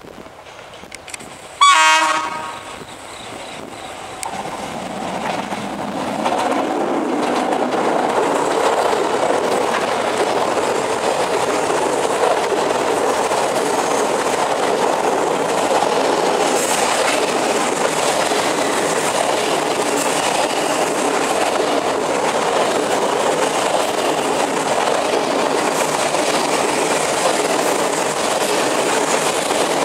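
A D20E diesel locomotive sounds one short horn blast about two seconds in. Then the steady, loud rumble and rattle of a freight train's wagons rolling past close by builds up, with its wheels running on the rails.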